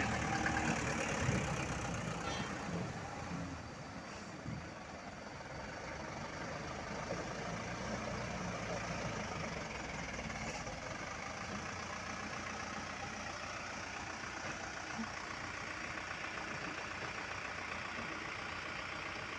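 Dump truck's diesel engine running steadily, a little louder in the first few seconds and then settling to an even level.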